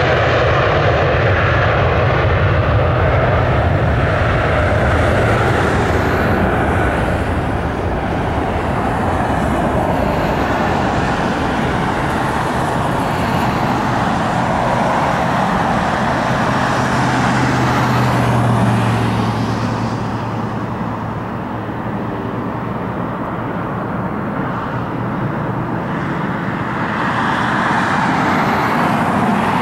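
Airbus A320's twin jet engines at takeoff thrust: a loud, steady roar through the takeoff roll, liftoff and initial climb, easing somewhat past the middle and swelling again near the end.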